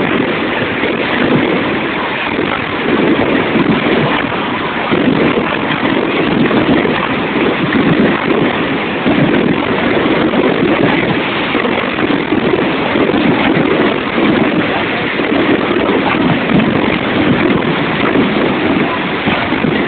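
Ground firework spraying a shower of sparks with a loud, steady hiss.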